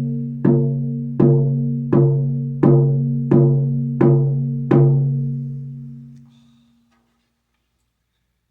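A 13-inch horsehide frame drum, European peg style, struck in a slow, steady beat: seven strokes about 0.7 s apart, each leaving a low, pitched ring. After the last stroke the ring dies away over about two seconds.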